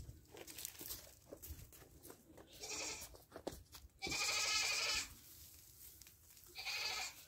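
Goats bleating: three calls, the loudest and longest about four seconds in, lasting about a second. Faint rustling and crunching of dry hay being spread between the calls.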